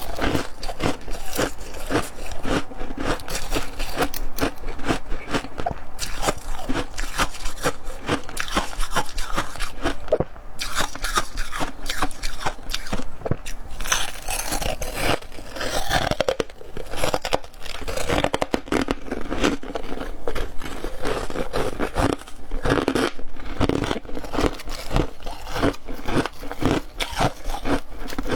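Close-up crunching and chewing of dry, crispy chunks of humidifier ice, a dense run of crackling bites without a break.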